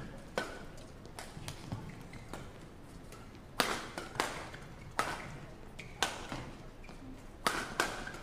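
Badminton rackets striking a shuttlecock in a fast doubles rally: about a dozen sharp, crisp hits, roughly one every half second to a second.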